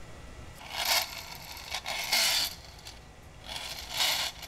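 Metal parts of a tinplate friction toy car's chassis and rear axle assembly being handled and fitted: three short, scraping rasps about a second apart.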